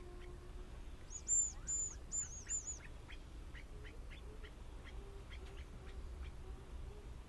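Male hazel grouse whistling its song about a second in: two thin, very high-pitched drawn-out notes followed by a quick run of shorter ones.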